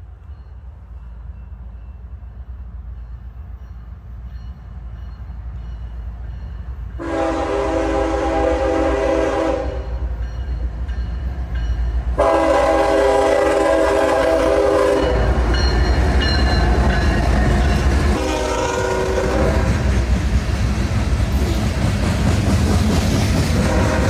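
Loaded CSX coal unit train approaching behind GE ES44AH diesel locomotives, their low engine rumble building steadily. The locomotive horn then sounds two long blasts, a short one and a final long one, the pattern for a grade crossing. The locomotives pass at close range with heavy engine rumble and the clatter of wheels on rail.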